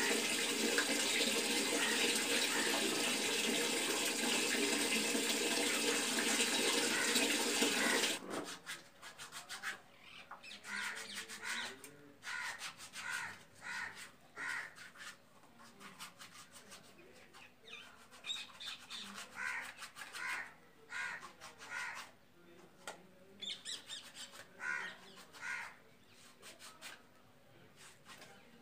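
Water running hard from a tap for about eight seconds, then shutting off abruptly. After that come irregular rasping strokes of a pumice stone and foot file scrubbing the skin of a wet foot, with birds calling now and then.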